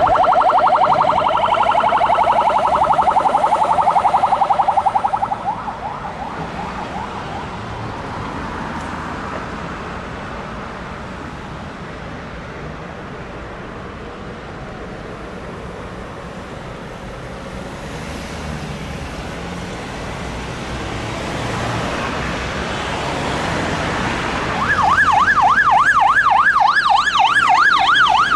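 Emergency vehicle siren in a fast warble, fading away about five seconds in, leaving steady road traffic noise. Near the end a second siren starts up loud, sweeping up and down about twice a second.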